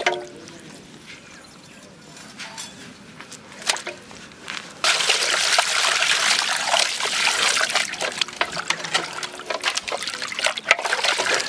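Water poured from a plastic jug into an aluminium basin of plucked whole chickens, splashing as hands wash them; the pouring starts suddenly about five seconds in and goes on steadily. Before it, a short pitched sound right at the start and a few quiet knocks of handling.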